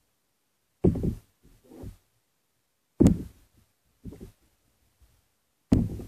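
A part-filled plastic water bottle thudding down on a hard surface three times, about a second in, about three seconds in and near the end, each landing followed by a softer knock or two; after the last landing the bottle stands upright.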